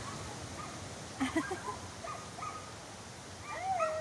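Surf breaking and washing on a rocky shore, a steady rushing, with a few short high calls over it about a second in and again near the end.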